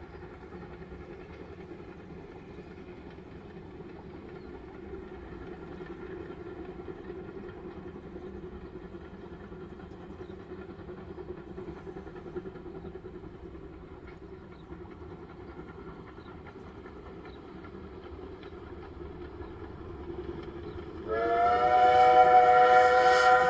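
Distant narrow-gauge steam locomotive working a train up the valley side, a faint steady sound. Near the end its steam whistle sounds loudly, a chord of several tones held for about three seconds.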